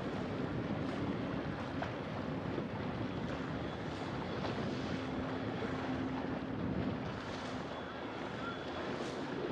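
Motor yacht under way, its engine running steadily with water noise along the hull and wind on the microphone.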